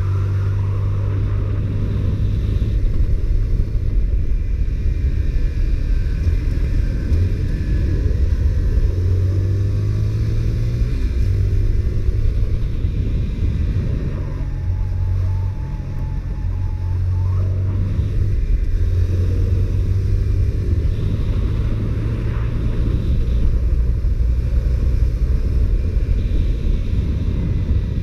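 Honda CBR125R's single-cylinder four-stroke engine with its stock exhaust, running steadily under way. It eases off briefly about halfway through, then picks up again.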